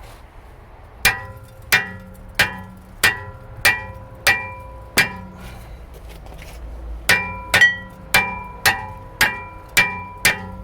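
Hammer blows on a BMW 320d's rear brake disc to knock it off the hub, each strike leaving the metal ringing. There are two runs of seven blows, a little over one a second, with a pause between. The disc stays stuck, held by the handbrake shoes inside its drum.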